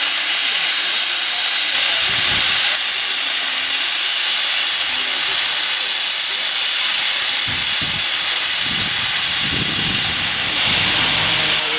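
Steam locomotive hissing off steam loudly and steadily, briefly louder twice: about two seconds in and again near the end.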